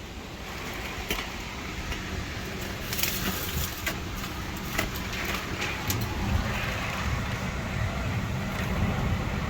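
Storm wind gusting around and against the RV, a rushing rumble that slowly builds, with a few faint sharp ticks and knocks scattered through it.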